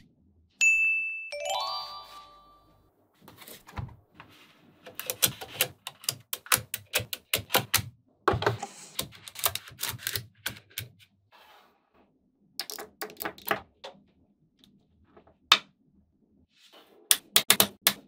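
Small magnetic balls clicking and snapping against one another in quick runs of sharp taps, with pauses between the runs. Near the start there is a short ringing ding with several tones that fades over about two seconds.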